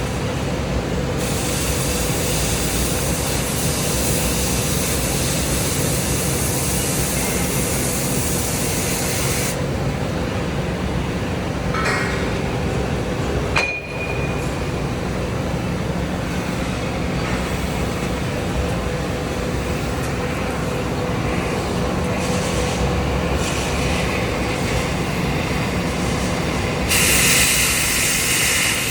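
Oxy-fuel cutting torch running with a steady rumble, its hiss rising sharply for long stretches as the cutting jet blows through steel. A single sharp metallic clink comes about halfway through.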